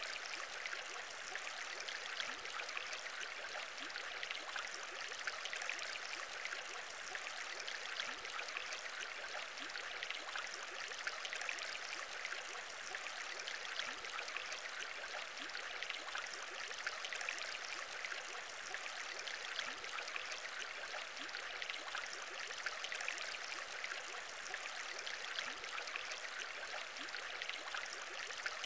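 Aquarium bubbling: a steady stream of small bubbles rising through water, many tiny pops over an even watery hiss.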